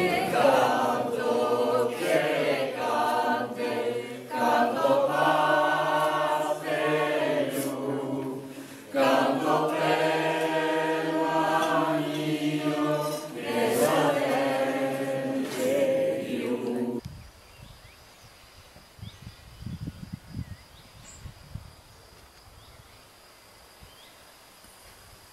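A group of voices singing together, choir-like, cutting off abruptly about two-thirds of the way through. Then faint outdoor ambience follows: low, uneven rumbling and a thin, steady high tone.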